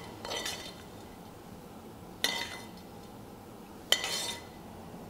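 Serving utensils clinking against a salad bowl three times, near the start, about two seconds in and about four seconds in, each clink ringing briefly.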